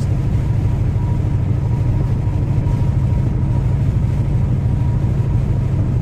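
Steady low rumble of a car's engine and road noise heard from inside the cabin, with a faint steady whine on top.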